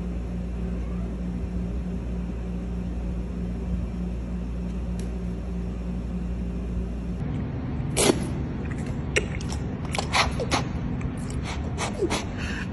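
A young kitten purring steadily as its face is rubbed. After a cut, a run of short sharp wet clicks and smacks from an orangutan's lips working at a mug of tea.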